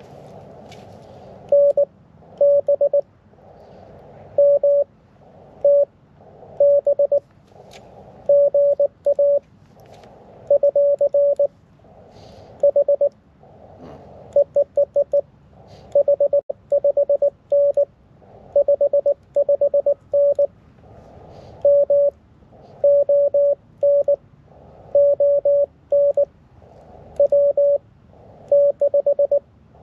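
Morse code (CW) from a small low-power ham transceiver: a steady mid-pitched beep keyed in short dot-dash groups, about one group a second. The receiver's band hiss drops out around each group and returns in the gaps.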